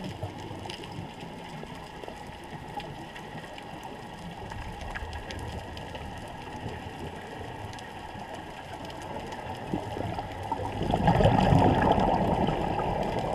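Muffled underwater ambience with faint scattered clicks. About eleven seconds in, a louder rushing burst of bubbles rises for a couple of seconds, a scuba diver exhaling through the regulator.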